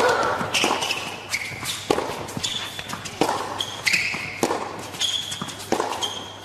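A tennis ball is struck by rackets and bounces on an indoor hard court in a steady baseline rally, a sharp pock about every two-thirds of a second. Short high squeaks of the players' shoes on the court come between the hits.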